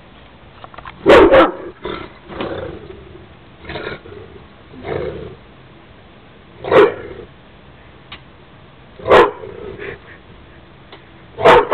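A dog barking in loud single barks a few seconds apart, a quick double bark about a second in, with softer woofs in between.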